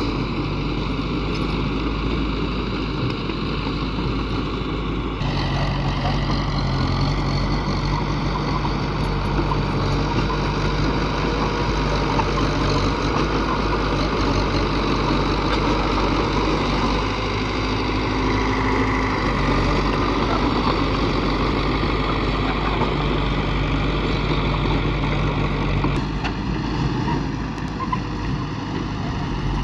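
Heavy diesel engines of construction machinery running steadily. The engine note shifts abruptly about five seconds in and again near the end.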